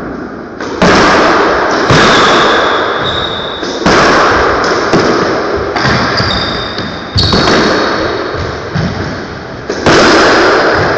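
Squash rally: the ball is struck and hits the walls every one to two seconds, each sharp crack ringing on in the echoing court. A few short high squeaks come between the shots.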